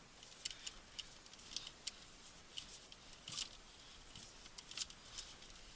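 Faint, scattered small clicks and scrapes, about a dozen over a few seconds, from hands working an aftermarket steering wheel onto its hub.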